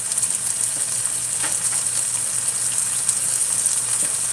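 Canned mackerel stewing with tomatoes, onions and sweet peppers in a nonstick frying pan, sizzling steadily with a fine crackle.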